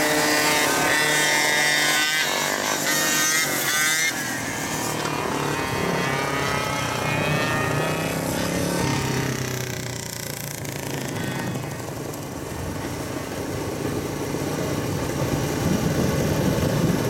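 GoPed gas scooters and small motorbikes racing: high-pitched engines revving up and down, loud in the first few seconds, fading in the middle and growing louder again near the end.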